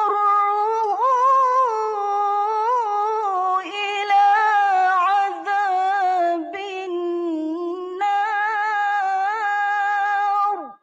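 A woman's solo voice reciting the Quran in mujawwad-style competition tilawah, holding one long ornamented melisma. The pitch wavers, sinks lower in the middle and climbs back, and the line ends with a quick downward slide.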